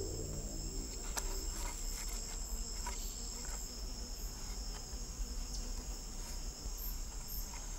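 Forest insects trilling steadily in two high-pitched bands, with scattered faint clicks and ticks. A fading music tail dies away in the first moment.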